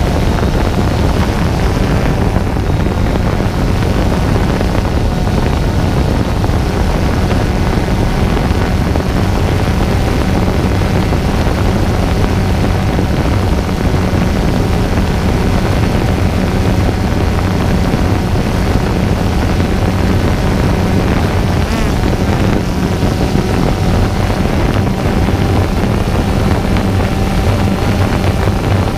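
Small multirotor drone's motors and propellers running with a steady hum, picked up by its own onboard camera.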